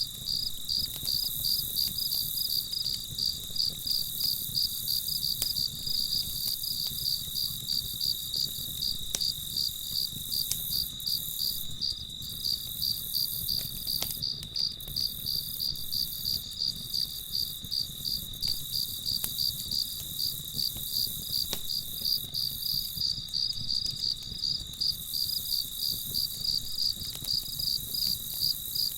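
Crickets chirping in a steady, even rhythm of about three high-pitched chirps a second. A few faint clicks, like a campfire crackling, and a low background rumble sit beneath.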